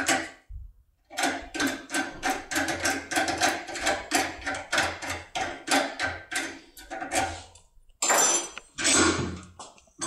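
Foil impression tool being rocked back and forth in a CISA ASIX lock cylinder clamped in a metal vise: rhythmic metallic clicking with a ringing tone, about three strokes a second. Two louder scraping knocks follow near the end.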